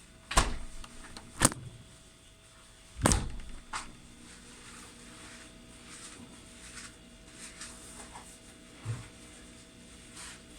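Refrigerator being handled: a few thuds and knocks of its door and fittings in the first four seconds, the loudest about three seconds in, and a soft low thump near the end, over the fridge's steady hum.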